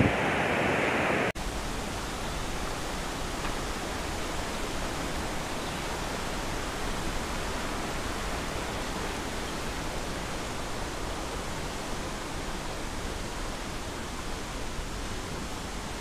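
Steady rush of a fast, rocky mountain stream and waterfall, a constant even roar of water. About a second in it drops out for a moment and comes back brighter and fuller.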